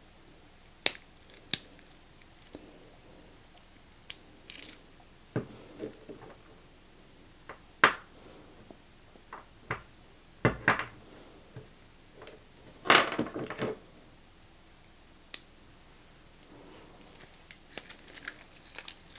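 Small metal clicks and scrapes from a spring bar tool working the micro-adjustment on a steel watch bracelet clasp. Scattered single clicks, a longer scraping rattle about two-thirds through, and a quick run of small clicks near the end.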